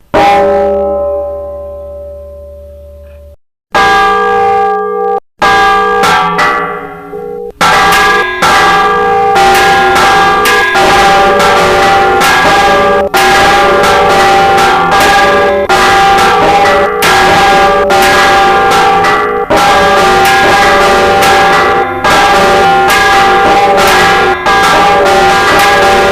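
Church bells of the Old Cathedral of Santa María in Vitoria ringing loud: a few separate strokes with long ringing decays, then from about eight seconds in several bells sounding together in a rapid, continuous peal.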